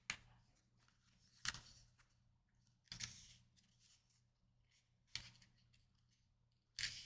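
Near-quiet room with four or five brief papery rustles and taps, spaced about a second and a half apart, the longest a little under halfway through: oracle cards or guidebook pages being handled.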